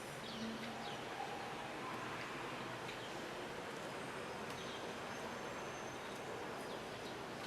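Faint steady background hiss with a few faint, short high chirps scattered through it.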